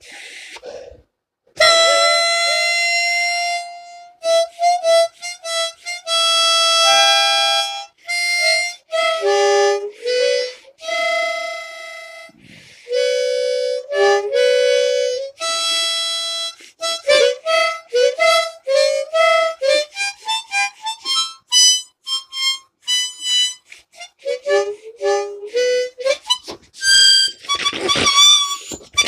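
Melody played on a reedy wind instrument: a long held note near the start, then quick runs of short notes, some of them sounded two at a time.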